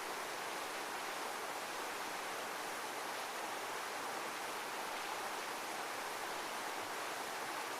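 Steady, unbroken rush of running water, heaviest in the middle range, with no rise and fall of breaking waves.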